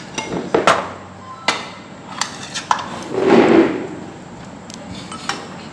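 Tableware knocking and clinking on a metal serving tray: a handful of separate short knocks from bowls and chopsticks, with a brief louder scuffing noise about three seconds in.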